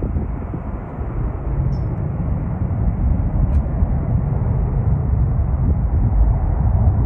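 Jet aircraft engine rumble, a steady low roar that slowly grows louder.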